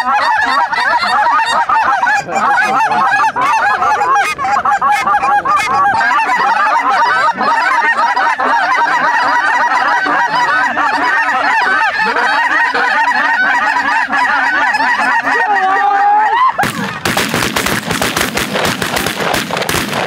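A large flock of lesser Canada geese calling nonstop, a dense chorus of overlapping honks. About three and a half seconds before the end, a rapid volley of many shotgun shots from several guns breaks in.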